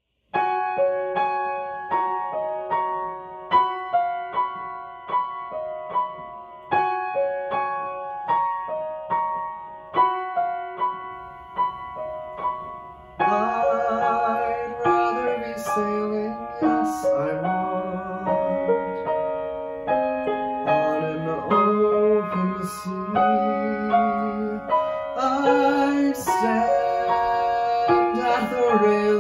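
Piano accompaniment for a musical-theatre duet: a solo piano introduction of repeated chord figures, then about halfway in, singing joins over the piano.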